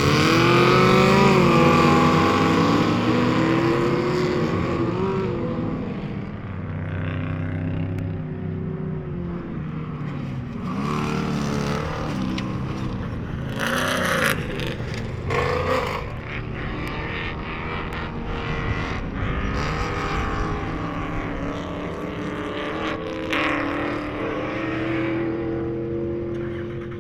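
Off-road race car engine running hard, its pitch rising and falling over and over with throttle and gear changes. Loudest in the first few seconds, with a couple of short hissing noises about halfway through.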